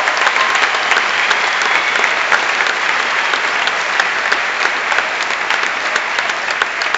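Large audience applauding loudly, a dense steady clapping that keeps on without a break, with a voice whooping briefly near the start.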